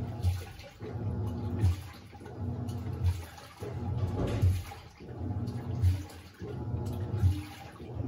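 Panasonic NA-F140B6 top-loading washing machine in its gentle rinse agitation. The motor hums as the pulsator churns water and bedding in even surges about every one and a half seconds, with a short lull between each one as it reverses.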